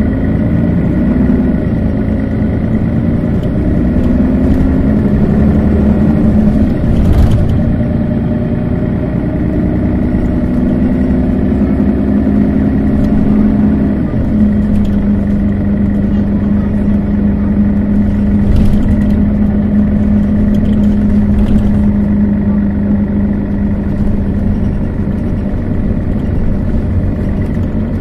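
Setra S415 NF low-floor city bus's diesel engine running, its pitch shifting during the first half and then holding steady from about halfway. A few short knocks are heard along the way.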